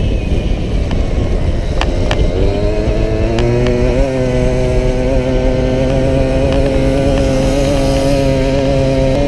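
A racing Solex moped's small two-stroke engine, heard onboard: the revs drop away early on, then climb from about two and a half seconds in and hold at a steady high pitch. A few sharp clicks come around two and three and a half seconds in.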